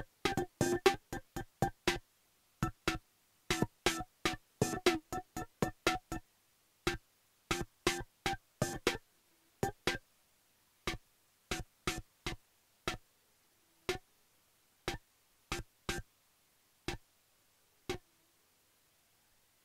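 Drum-machine hits with a pitched, tom-like ring, from a Boss Dr. Rhythm drum machine. A busy pattern plays for about nine seconds, then thins to single hits about once a second, the last one near the end.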